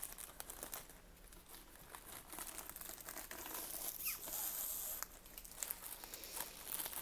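Soft plastic crinkling as a rolled diamond painting canvas is slid into its clear plastic bag, loudest in the middle.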